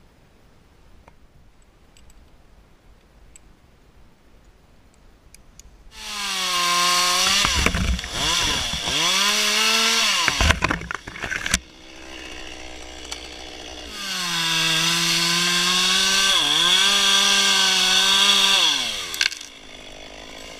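After a quiet start, a two-stroke chainsaw revs up and cuts cedar branches in two spells of about four and five seconds, its pitch sagging as the chain bites into the wood. Between the spells and near the end it drops back to a lower idle.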